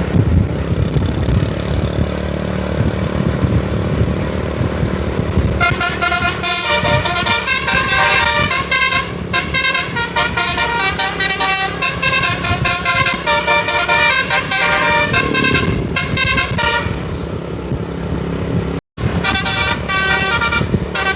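A tour bus's engine running, then about six seconds in a telolet basuri musical air horn plays a quick tune of stepped notes for around eleven seconds. After a short break near the end the horn tune starts again.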